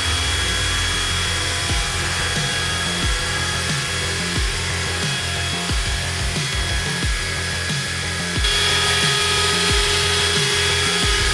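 A SAF Kjellberg RG 6000 dish-end finishing machine runs with a steady whining tool noise, under background music. About eight seconds in, a further whine joins and the sound gets a little louder.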